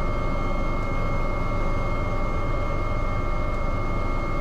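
Leonardo AW189 helicopter cockpit noise in the climb: a steady low rumble under a constant high-pitched whine.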